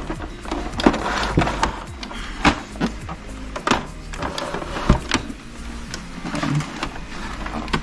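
Plastic knocks and clicks from an Epson L5190 printer's scanner unit being handled and fitted back onto the printer body, with a dozen or so separate sharp knocks.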